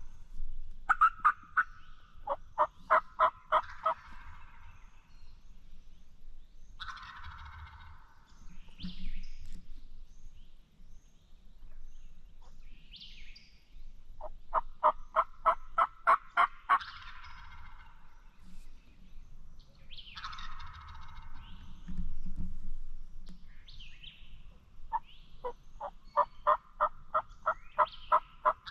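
Wild turkey calling back and forth with a gobbler. Three times a run of about ten quick, evenly spaced sharp notes like hen yelps is followed some seconds later by a shorter, rattling gobble.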